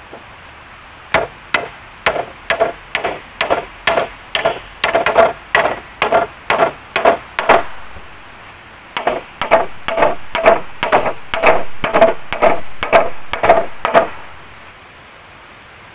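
Repeated blows of a hand tool on wood during hut building, about three a second, in two runs with a short pause just past halfway.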